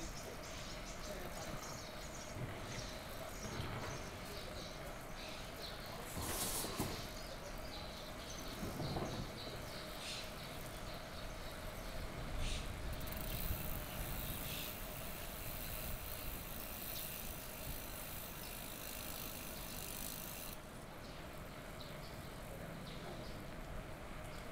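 Street ambience from a moving bicycle: a steady background rush with scattered clicks and knocks, a faint steady hum, and a high hiss that comes in for about seven seconds midway.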